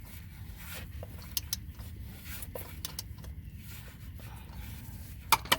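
A 3/8-inch ratchet on a cap-type oil filter socket clicking now and then as an oil filter is worked loose, over a low steady rumble. There are a couple of sharper clicks near the end.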